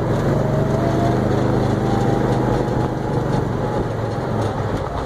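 Vehicle engine running steadily with an even hum as it drives.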